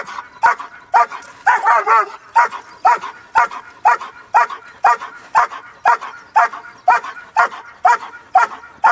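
Five-month-old German Shepherd puppy barking in a steady rhythm, about two barks a second, at a helper hidden in a protection-training blind. A quick flurry of higher yips comes about one and a half seconds in.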